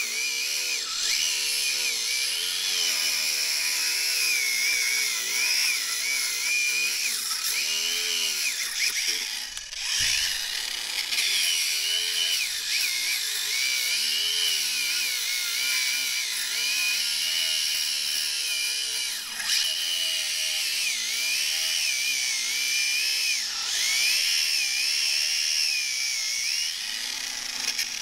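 Parkside angle grinder with a replacement motor cutting through a steel-belted car tyre. Its whine wavers up and down as the disc bites and the tyre's steel wires load the motor, and the sound dips briefly about ten seconds in.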